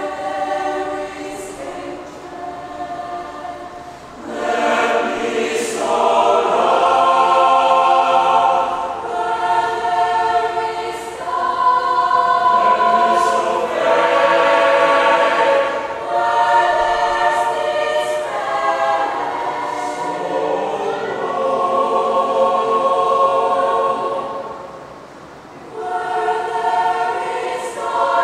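Mixed choir singing unaccompanied, in several parts, with sustained chords. It is softer at first, swells to full voice about four seconds in, and dips briefly near the end before rising again.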